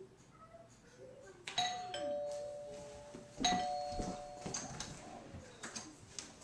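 Doorbell chime sounding a falling two-note ding-dong, rung twice about two seconds apart.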